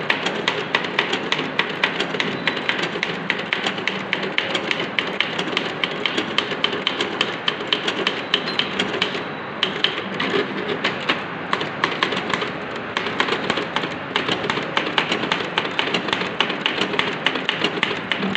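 Keys of a Godrej manual typewriter struck in a fast, steady stream of sharp clacks as the typebars hit the paper, a short word typed over and over as a typing drill. The clacking thins out briefly about halfway through.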